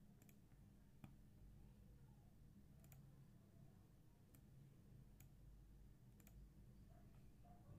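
Near silence with a low steady hum, broken by a handful of faint single computer mouse clicks spread through, one a double click about three seconds in.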